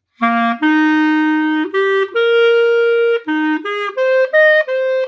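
Solo clarinet playing a slow melody in separate, clearly tongued notes: a short low upbeat leaps up a fourth to a held note, then about a dozen notes climb and fall. This is a beginner's phrase that starts with the upbeat C to F.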